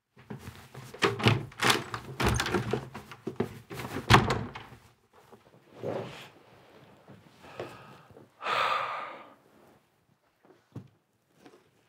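Heavy thumps and bangs against a wooden door, with a door slamming, in a rapid, irregular run over the first five seconds. Near nine seconds comes a short rough rush of noise, and near the end a couple of soft knocks.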